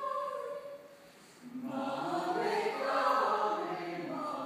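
A choir singing together in a vocal exercise. A brief sung sound fades out in the first second, then the group comes in about a second and a half in and swells to its loudest about three seconds in.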